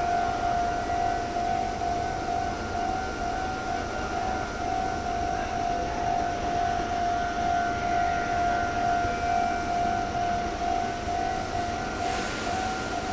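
Japanese railway level-crossing alarm ringing on and on in a steady, evenly pulsed tone. About a second before the end, a hiss joins it as a train approaches.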